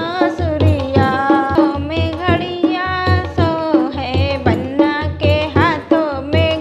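A woman singing a banna geet, a wedding folk song, over a steady hand-drum beat.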